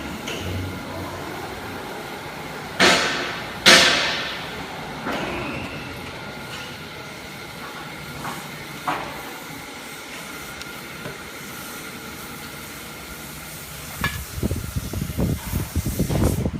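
MXZ260X door-lock drilling machine running with a steady hum, with two sharp bursts of hissing air about 3 and 4 seconds in and a few smaller ones after. An irregular low rumbling starts near the end.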